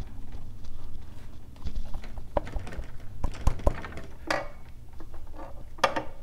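Handling noises from fitting a cam cover gasket: a scatter of light clicks and knocks as the parts are moved and pressed into place, with a short rustle about four seconds in and another clatter near the end.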